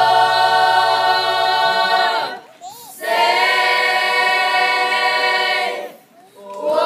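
Children's choir singing a cappella: two long held chords, each a few seconds long, with a short break for breath between them.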